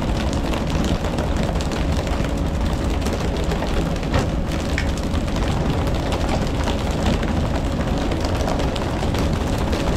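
Steady loud rumble and rush of a fishing boat under way at sea: engine noise mixed with wind and water.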